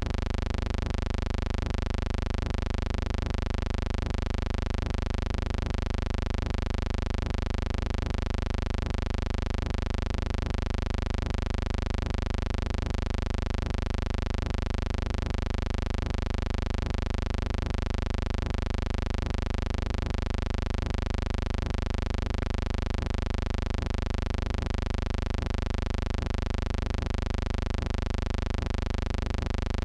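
A steady, unchanging electrical buzzing hum with many evenly spaced overtones and no other sound, the kind of hum heard on an old film soundtrack where the reel carries no recorded sound.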